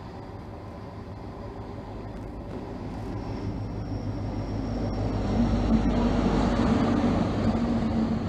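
Class 43 HST power car's diesel engine and the train's wheels on the rails, growing steadily louder as the train runs into the platform. It is loudest from about five seconds in as the power car comes level, then the coaches roll past.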